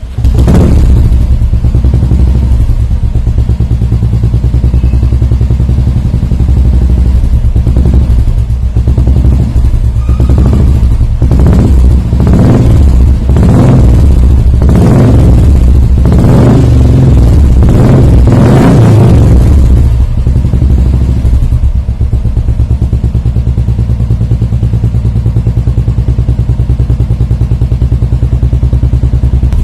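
Royal Enfield Classic 350 single-cylinder engine through a Wild Bore aftermarket silencer, idling with a loud, even thump. It comes in abruptly at the start, and from about a third of the way in it is blipped hard several times in a row before settling back to idle.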